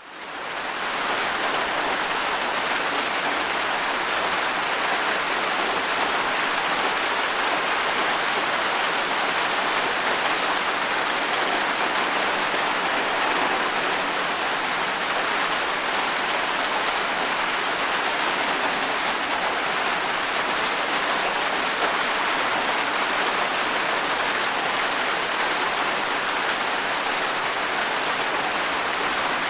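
Steady rain falling, a constant even hiss that fades in over the first second.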